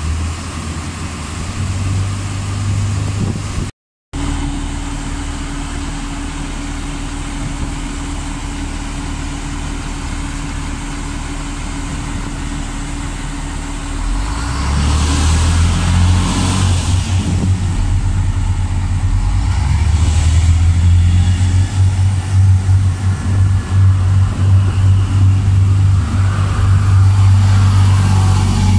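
Underfloor diesel engines of an Irish Rail 22000 Class InterCity railcar running at a standstill, a steady low drone with a held hum. About halfway through the engine sound grows louder and rougher, with bursts of hiss over it.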